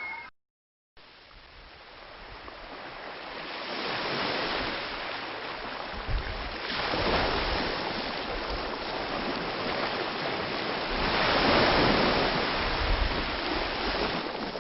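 Sea waves breaking on a beach: surf that swells and ebbs in several surges, the loudest about twelve seconds in. The sound cuts out briefly for about half a second near the start.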